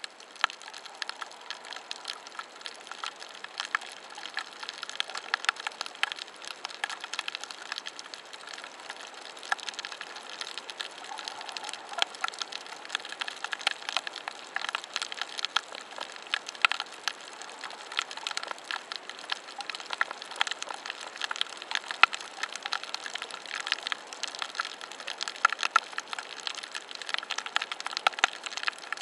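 Snapping shrimp crackling on a coral reef, heard underwater: a continuous fizz of sharp clicks with louder single snaps scattered through.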